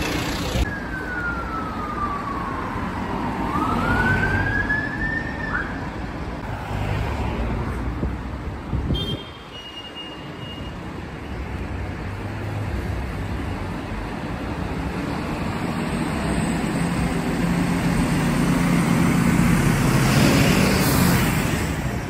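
Fire engine engines running steadily, with one short emergency-vehicle siren sweep, falling then rising, a few seconds in. Near the end the engine noise grows louder as a fire engine drives past close by.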